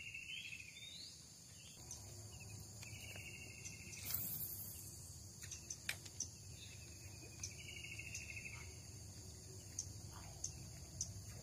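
Faint natural ambience at a tropical lake: a steady high insect drone, with a trilled animal call repeated three times, each lasting a second or more. A few light clicks and knocks come and go, the loudest about 4 s in.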